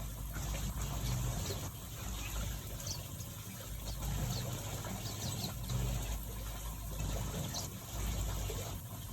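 Small finches giving short, high chirps here and there over a steady rushing background noise with uneven low rumbling.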